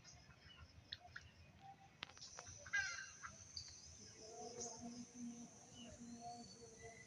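Birds chirping and calling, faintly, with a louder call about three seconds in.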